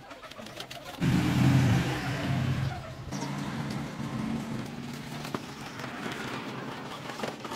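A motor vehicle engine running, which starts suddenly about a second in, is loudest for a second or two, then carries on more quietly.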